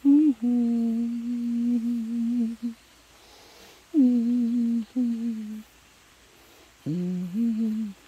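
A person humming a slow tune in three phrases of long held notes, with short quiet gaps between them.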